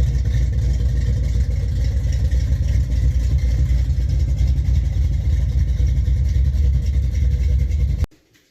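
A car engine running loud and steady, cutting off abruptly about eight seconds in.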